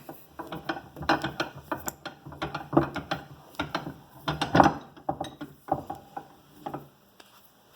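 A heavy cast-iron bench vise being handled and turned over: a run of irregular metal clunks, knocks and clicks that dies down near the end.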